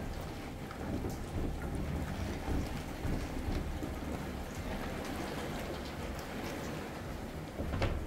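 Heavy rain pouring down in a thunderstorm, a steady wash of noise over a low rumble, with a short, louder sudden sound near the end.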